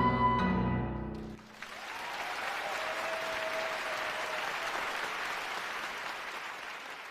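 A boys' choir holds its final chord, which ends about a second and a half in. Audience applause follows and fades toward the end.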